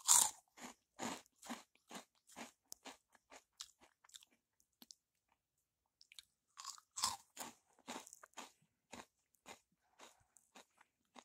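Cheddar jalapeño Cheetos being bitten and chewed with the mouth open: crisp crunches about two a second that fade away, then a second piece bitten and crunched from about six and a half seconds in.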